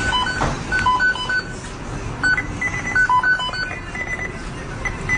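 A quick run of short electronic beeps at three or so pitches, hopping between notes in a tune-like pattern, over a steady background noise.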